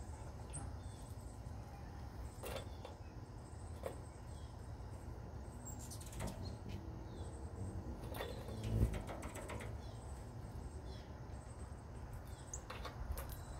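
Songbirds chirping in short, scattered calls over a steady low rumble, with a brief low flutter a little past the middle.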